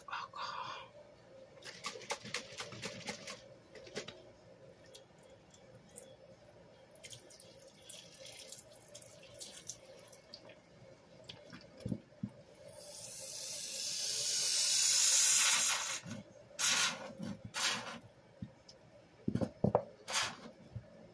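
Hands squeezing a wet, soapy sponge over a plastic tub of soaked sponges: squelching and crackling suds, with a long swelling hiss of liquid streaming out about two-thirds of the way through.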